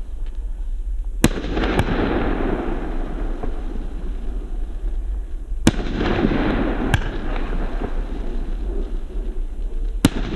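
Argento Saphir category F2 fireworks battery firing: sharp bangs coming in pairs about every four seconds, each pair followed by a trailing crackle from the bursts.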